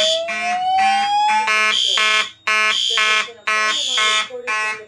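Fire alarm horns sounding in a pulsed pattern about twice a second, the Simplex 2901-9838 mechanical horn coded to March time along with a System Sensor P2W horn. Over the horns, a Notifier DVC slow whoop tone rises steadily in pitch and ends about a second and a half in.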